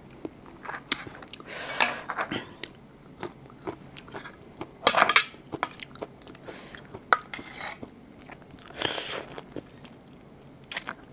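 A person eating spicy raw blue swimming crab salad: irregular biting, crunching and wet chewing, with louder noisy bursts about two, five and nine seconds in.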